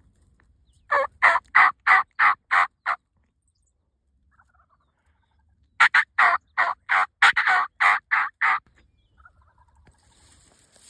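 Wild turkey yelping: two runs of loud, evenly spaced yelps, about seven notes and then about nine, a few seconds apart.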